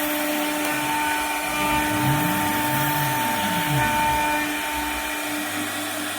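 CNC router running: a steady spindle whine over constant cutting noise, with a few low motor tones that rise and fall as the machine moves, between about two and four seconds in.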